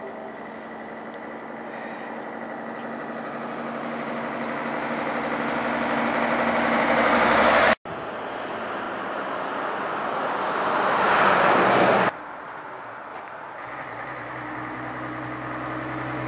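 Road traffic on a highway: engine and tyre noise swelling steadily louder as a vehicle approaches, cutting off suddenly about eight seconds in, then swelling again and dropping off sharply about four seconds later, leaving quieter steady traffic noise.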